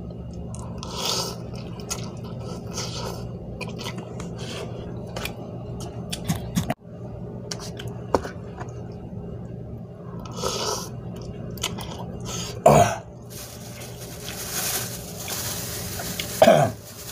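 Eating spicy cup noodles with a fork: chewing and slurping, with the fork clicking and scraping in the paper cup over a low steady hum. Two short loud coughs near the end from the heat of the chili, and a plastic bag rustling just before the second.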